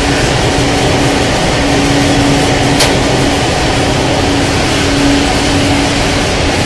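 Cooling fans of rack-mounted servers running in a server room: a loud, steady whoosh with a low hum, and one sharp click about three seconds in.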